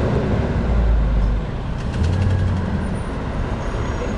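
Passing road traffic: a steady rumble of vehicles going by on the street.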